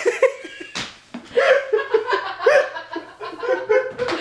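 Young man laughing hard in rapid, broken bursts, with a second person laughing along. A sharp slap is heard about a second in and another near the end.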